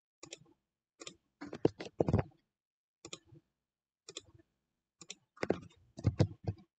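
Computer keyboard keystrokes and mouse clicks in short scattered bursts of several clicks each, with silence between.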